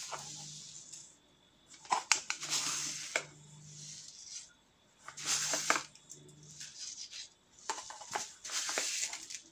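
A spoon digging into a glass jar of salt: gritty scraping and crunching of the salt, with light clinks against the glass, in several short bouts.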